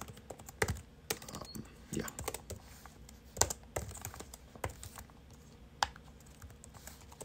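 Typing on a computer keyboard: irregular keystrokes with pauses between bursts, a few key strikes much louder than the rest, the loudest about three and a half seconds in.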